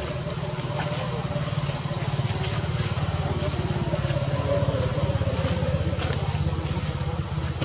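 A small engine running steadily with a low, rapid chugging, with a few short high chirps over it.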